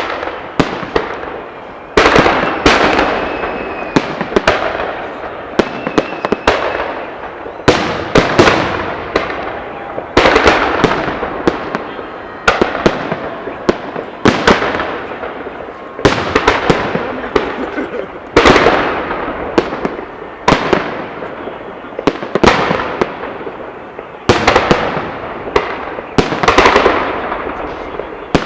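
Fireworks salute: shells bursting about every two seconds, each sharp bang trailing off into a fading crackle.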